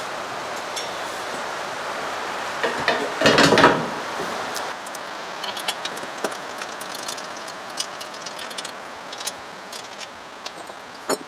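Small steel hardware (a bolt, washers and a nut) clinking and rattling as it is handled and fitted to the bull bar's mounting hole, with a louder clattering rattle about three seconds in and scattered light metallic clicks after it.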